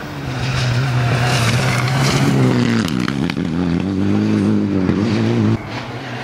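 Mitsubishi Lancer Evo X rally car's turbocharged four-cylinder engine running hard at high revs on a loose gravel stage. The revs drop briefly about three seconds in and climb again, and the sound cuts off suddenly near the end.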